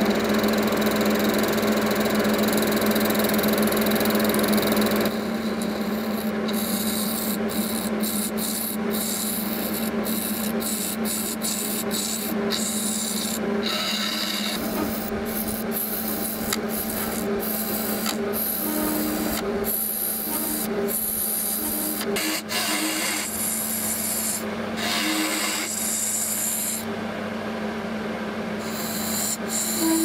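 Wood lathe running with a steady hum while a turning gouge cuts a spinning epoxy resin blank, scraping and peeling off long shavings. The cutting noise drops about five seconds in.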